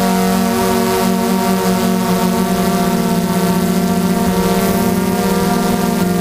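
Multirotor drone's electric motors and propellers running with a steady, multi-toned hum, with small flickers in pitch as the motor speeds adjust.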